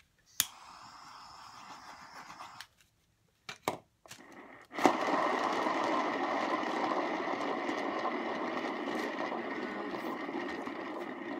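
Round paint-pouring spinner turntable set spinning with a sudden push, its bearing whirring steadily and slowly fading as it coasts. Before it starts, a short hiss and a couple of clicks.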